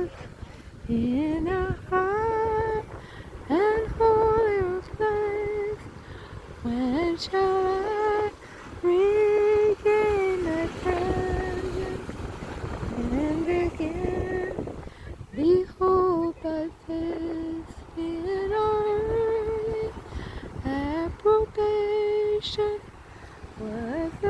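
A woman's voice singing a slow, unaccompanied melody in long held notes, sliding up into each phrase, with short breaks between phrases.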